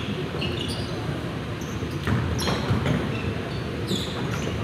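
Indoor basketball game sounds: a basketball bouncing on the gym floor, with a few sharp thuds and short high squeaks over a steady murmur from the hall.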